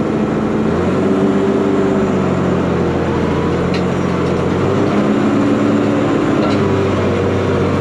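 Ford TW25's six-cylinder turbo diesel running steadily under load while pulling a Flatlift cultivator, heard from inside the cab. The engine note drops slightly and deepens about a second in.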